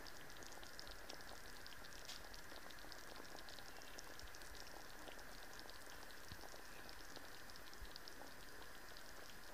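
Hot peanut soup bubbling in a pot: faint, rapid popping and crackling of small bubbles over a steady hiss.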